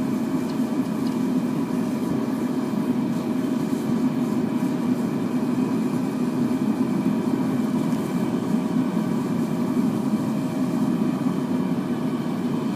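Forced-air propane burner firing an aluminum-melting furnace: a steady, even rush with a faint hum in it.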